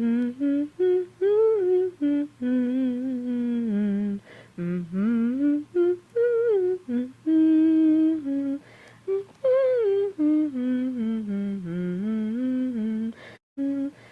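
A woman humming a slow, wandering tune in short phrases, her pitch gliding up and down, with brief pauses between phrases.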